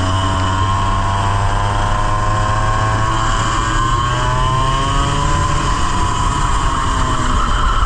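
Onboard sound of a 100cc racing kart engine under way: its pitch climbs steadily for about four and a half seconds, drops back as it comes off the throttle, then starts rising again near the end.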